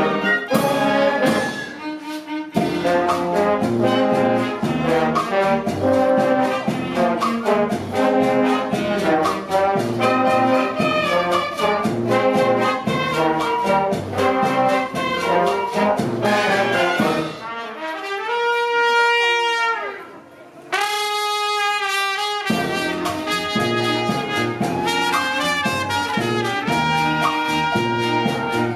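Wind band of clarinets, flute, saxophones, trumpets, trombones and baritone horns playing a mambo with a steady beat. A little past halfway the band drops out for two long held notes from a single wind instrument, then the full band comes back in.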